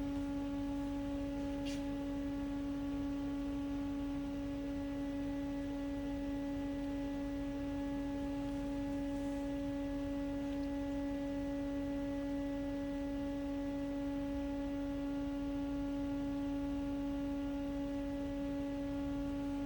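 Steady, unchanging hum with a clear pitch and overtones from a powered-up Haas CNC machine while its control runs a memory test.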